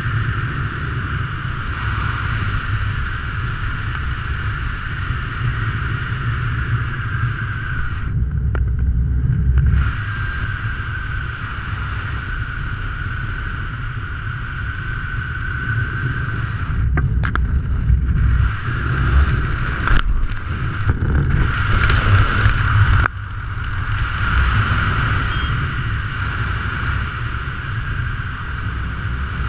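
Steady wind noise buffeting a helmet camera's microphone during a parachute descent under an open canopy: a low rumble with a steady hiss above it. The hiss drops out briefly about a third of the way in, and a few sharp snaps come a little past the middle.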